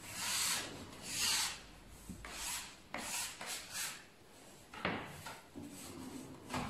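Hands rubbing and rolling bread dough on a flour-dusted wooden board: a run of dry swishes, with one sharp knock about five seconds in.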